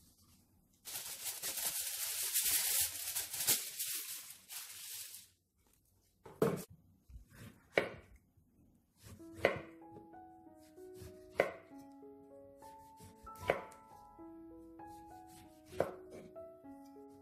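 A kitchen knife slicing a lemon into rounds on a wooden cutting board: six sharp knocks one to two seconds apart as the blade cuts through each slice and hits the board. Earlier comes a loud hiss lasting about four seconds, and soft background music of single notes joins about halfway through.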